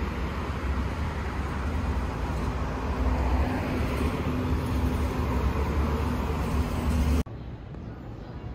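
Steady road traffic noise with a deep low rumble. It cuts off abruptly about seven seconds in, leaving a much quieter background.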